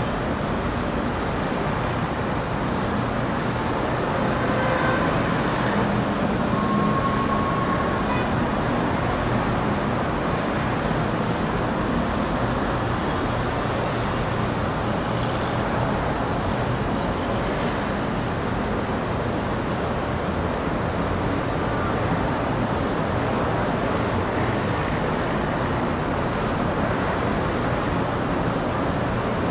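Steady outdoor city traffic noise, a continuous wash of road sound without a break, with a few faint short high tones and ticks mixed in.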